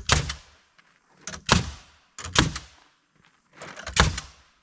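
Nails being driven into a wooden wall frame: four sharp strikes, each about a second apart, as the framed wall is tacked in place.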